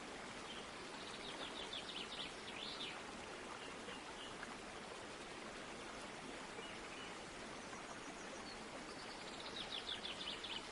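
A small bird's rapid trilled call, heard twice: about a second in and again near the end, over a steady hiss.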